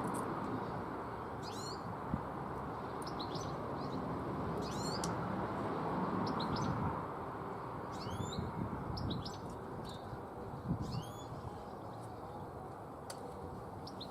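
Small birds chirping with short, quick rising calls again and again over a steady background hiss.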